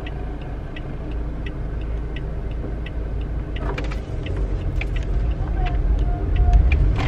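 Car engine and road rumble heard from inside the cabin, growing louder over the last few seconds as the car picks up speed, with a light ticking about three times a second running through it.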